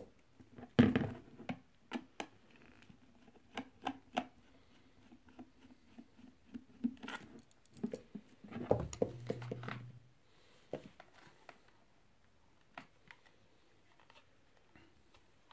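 Screwdriver work on the plastic housing of an Arzum Prostick hand blender: irregular clicks, taps and small scrapes as screws are turned out and the parts are handled. A louder knock comes about a second in, and a busy cluster of clicks around nine seconds.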